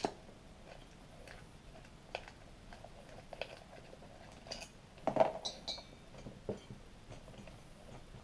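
Small metallic clicks and clinks at irregular intervals as pre-loosened clutch-cover screws are backed out by hand and handled on a 66cc two-stroke bicycle engine. The loudest cluster comes about five seconds in, with a brief metallic ring right after it.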